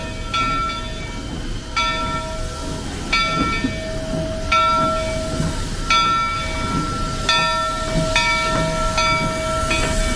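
A train's bell ringing, struck about every second and a half, over the background of a park crowd.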